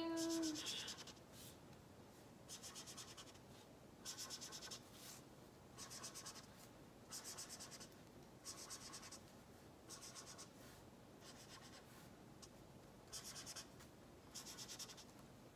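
Felt-tip marker (texta) scrubbing on paper in short strokes, drawing small oval shapes, about one stroke a second, faint.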